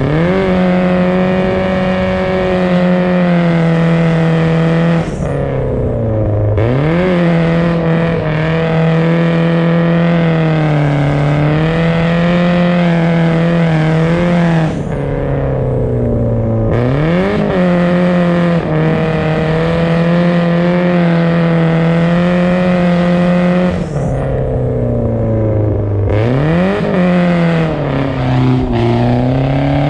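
BMW drift car's engine held at high revs for long stretches while drifting on ice, the pitch wavering slightly. About every ten seconds the revs drop briefly and then climb quickly back up.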